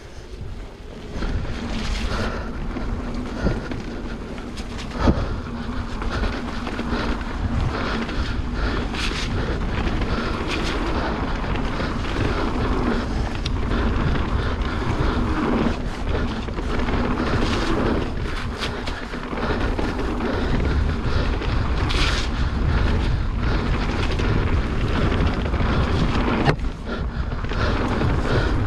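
Wind rushing over the microphone of a camera on a mountain bike riding down a dirt trail, with the tyres rolling and the bike rattling over bumps. A few sharper knocks stand out, the loudest about five seconds in and another near twenty-two seconds.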